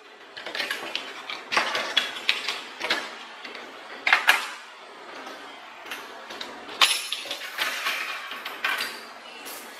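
Metal kitchen utensils and gadgets clinking and rattling as they are picked up and set down in a bamboo drawer organizer, in a series of irregular clinks.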